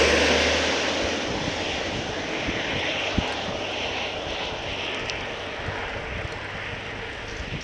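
Heavy diesel tipper truck passing close by, its engine rumble and road noise loudest at first and fading steadily as it moves away, over a continuing hiss of road and wind.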